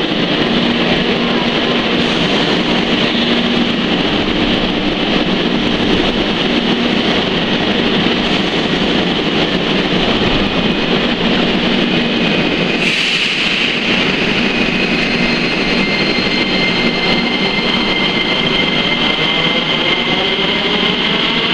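Metro train in an underground station, a loud steady rumble and hiss. In the last few seconds its electric traction motors set up a rising whine as it pulls away from the platform.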